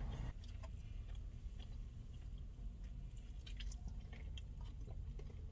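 A girl chewing a bite of sausage sandwich, with soft, scattered mouth clicks.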